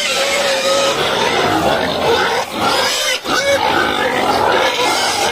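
Pigs squealing and grunting, with several short, drawn-out pitched squeals.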